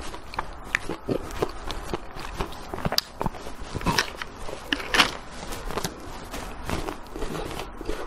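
Close-miked chewing of a small chocolate-covered ice cream bite: irregular crunchy cracks and crackles as the coating breaks between the teeth, the sharpest crack about five seconds in.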